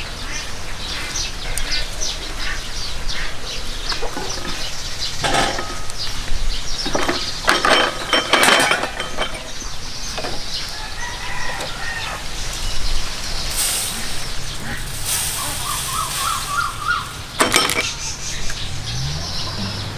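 Chickens clucking and calling, with several loud knocks and clatters. A low steady hum comes in during the second half.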